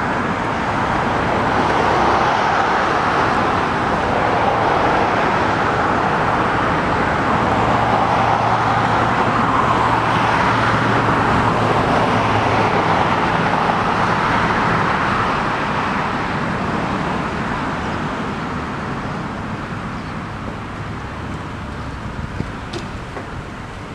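Road traffic passing: a steady rush of tyres and engines that swells, then fades away over the last third.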